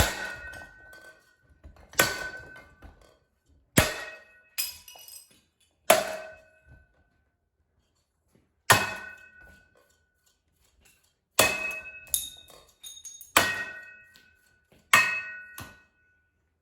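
A Deluxe Showroom ceiling fan being struck hard about eleven times at uneven intervals while stopped. Each hit gives a sharp knock followed by a brief metallic ring.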